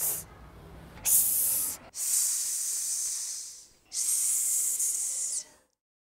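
A child saying the pure 's' sound, a hissing 'sss' with no vowel added: a short one, then three longer stretched ones, the last two held for about a second and a half.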